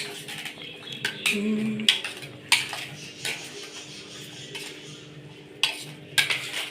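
A spoon stirring chicken into a thick marinade in a bowl, clinking and scraping against the bowl in irregular knocks.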